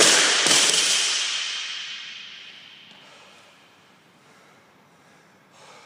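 Loaded barbell with 35 lb bumper plates dropped onto the gym floor: a loud crash, a second hit as it bounces about half a second later, then the bar and plates ringing and fading away over about three seconds.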